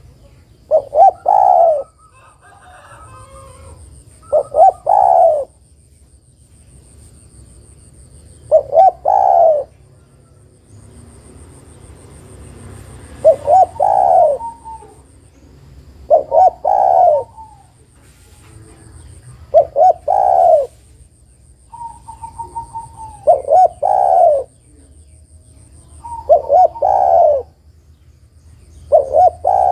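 Spotted dove (tekukur) cooing: a short phrase of a few notes, repeated about every three to four seconds, some eight times. It is a female calling to a male, as the uploader has it. A faint high insect-like whine comes and goes between the calls.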